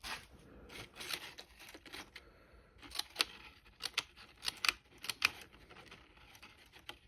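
The small scissors of a Victorinox SwissTool multi-tool snipping repeatedly: a string of short, sharp clicks, coming thickest from about three to five seconds in.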